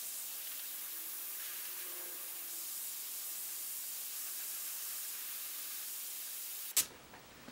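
Gravity-feed airbrush spraying acrylic ink: a steady hiss of compressed air through the nozzle. It cuts off suddenly with a click near the end.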